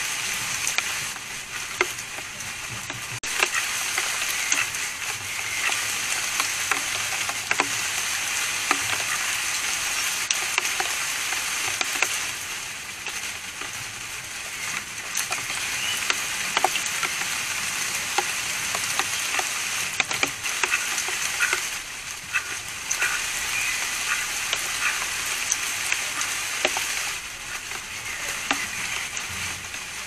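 Magpie pecking at a wire-mesh peanut feeder: many short, sharp, irregular clicks and taps of beak on metal mesh over a steady hiss.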